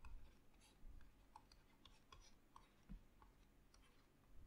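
Near silence: room tone with faint, irregular little clicks and taps from a pen writing on a tablet.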